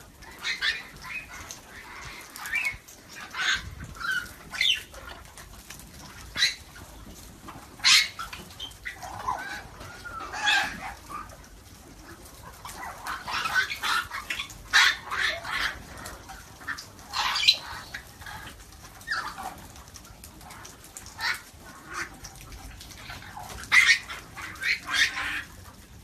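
A flock of African grey parrots calling: scattered short whistles and squawks, some gliding up or down in pitch, with a few louder squawks standing out.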